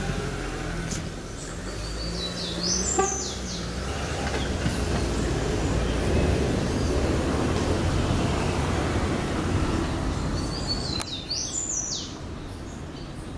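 Outdoor ambience: a low rumble of road traffic that swells through the middle and eases off near the end, with a short chirping bird call about three seconds in and again near the end.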